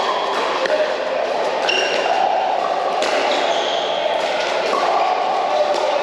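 Pickleball paddles striking the hollow plastic ball in a doubles rally: a few sharp pops a second or more apart, echoing in a large indoor hall. Short high squeaks come between the hits.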